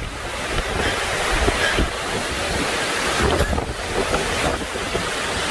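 Hurricane-force wind buffeting the microphone in a dense, steady rush of noise with heavy low rumble, over surf breaking.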